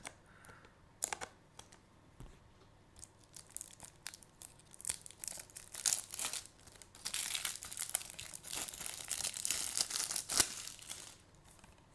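Plastic packaging of a Blu-ray case being handled and unwrapped: crinkling and tearing with scattered sharp clicks, growing denser in the second half.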